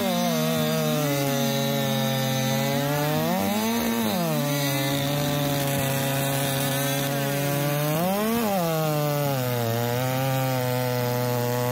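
Chainsaw cutting through a softwood log in three cuts. The engine note sags and holds low under load in each cut, and revs up briefly between cuts about 4 and 8 seconds in. It is bogging somewhat: the sawyer thinks the 8-pin drive sprocket is a little too much to push through the wood and a 7-pin would suit better.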